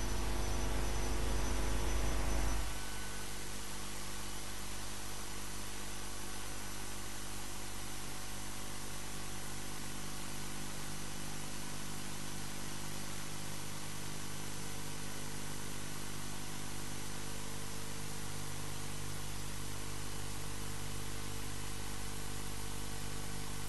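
The final held chord of the national anthem cuts off about two and a half seconds in. A steady hum with a layer of hiss is left.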